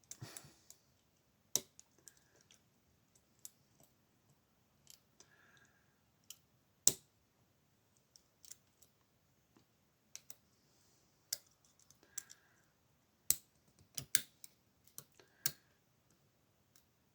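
Lock pick working the pin tumblers of an Assa Abloy Union brass padlock under light tension: irregular sharp metallic clicks a second or two apart, with a louder cluster near the end. The pins are very clicky, which the picker takes for serrated pins.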